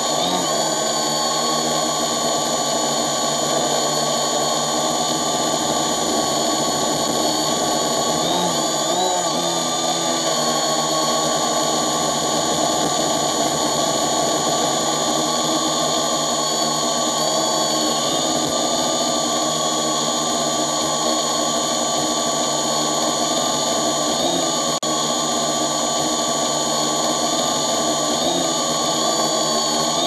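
Multirotor drone's motors and propellers whirring steadily with a high-pitched whine, heard close up from the camera it carries. The pitch wavers briefly about nine seconds in and twice more near the end as the motor speeds change.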